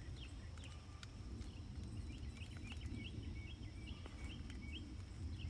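Birds chirping in a quick series of short high notes over a steady, thin, high insect drone.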